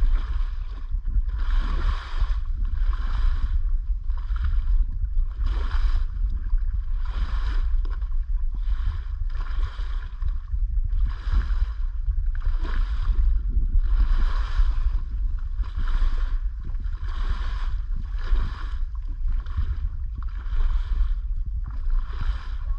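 Paddle strokes in the sea: a swish and splash of water about every second and a half, in an even rhythm, over a steady low rumble.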